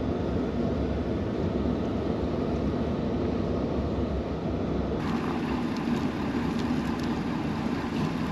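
Pickup truck creeping along a farm lane, heard from inside the cab: a steady low engine and tyre rumble. About five seconds in the sound changes abruptly, with a few light clicks after it.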